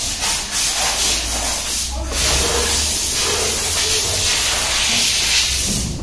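Steam hissing steadily from an espresso machine's steam circuit, tied to its steam solenoid valve, with a short dip about two seconds in.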